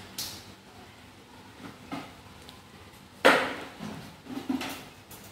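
A few knocks and clatters of hard objects being handled, the loudest a sharp knock a little over three seconds in.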